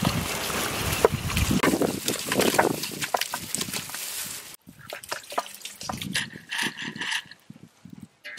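Raw chicken pieces sliding and dropping from a steel bowl into a large steel pot: a run of wet slaps and small knocks on metal for about four and a half seconds, then only a few scattered taps.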